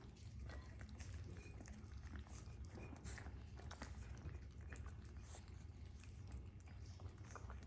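Three young Shih Tzu puppies eating from bowls: faint chewing and lapping with many small, irregular clicks of teeth and bowls.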